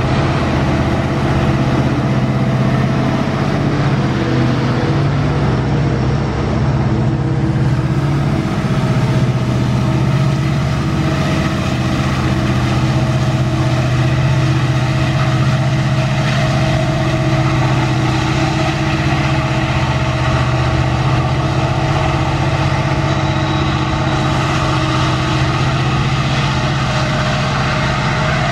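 Diesel-electric freight locomotive engine working hard under heavy load, hauling a loaded iron-ore train up a grade: a loud, steady, deep drone.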